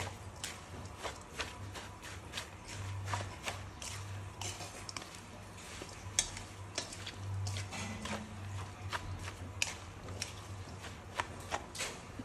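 A spoon stirring a wet mix of small raw fish, herbs and bean sprouts in a stainless steel bowl: irregular clicks and scrapes against the metal, about two or three a second.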